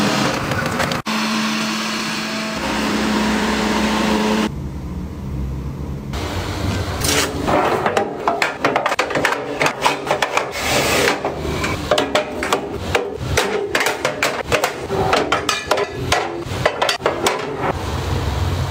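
Plastic spice containers and bottles set down and slid onto cabinet shelves: a quick run of clicks and knocks through the second half. A steady hum sounds in the first few seconds.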